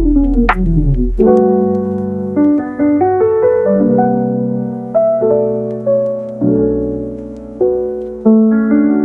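Background piano music: a quick falling run of notes, then a gentle melody over struck chords that ring out and are struck again about every second.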